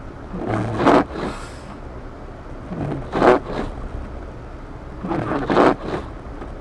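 Car windshield wipers sweeping across snowy glass with a scraping swish, three sweeps about two and a half seconds apart, over the steady low rumble of the car driving.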